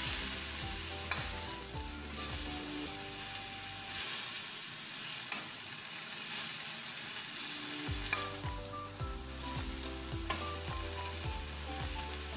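Kale and bell pepper strips sizzling in a hot wok while a wooden spatula stirs and turns them, scraping across the pan, with the hiss swelling at each stroke.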